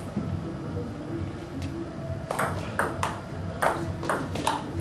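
Table tennis rally: the ball clicking sharply off the paddles and the table, a single hit a little over a second and a half in, then a quick run of hits several times a second from about two seconds in.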